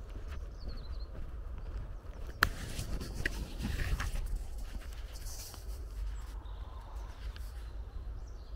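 Footsteps of a person walking over grass and a dirt lane, over a steady low rumble, with one sharp click about two and a half seconds in.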